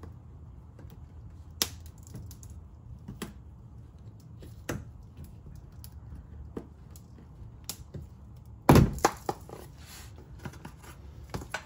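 Plastic push-in retaining clip on a car's plastic underbody splash shield being pried with a tool: scattered sharp clicks, then a loud crack about nine seconds in as the clip pops free, followed by a few more clicks.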